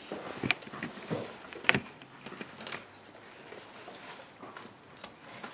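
Sharp clicks and taps of utensils and dishes during a meal: one about half a second in, a louder one just under two seconds in, and another near the end, with softer handling noises between.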